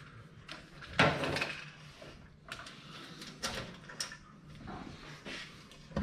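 Workshop clatter: irregular knocks and clunks from things being handled, the loudest about a second in.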